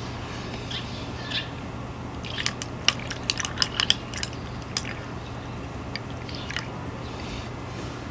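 Kaninchen dachshund crunching dry food, a quick run of sharp crunches starting about two and a half seconds in and lasting about two seconds.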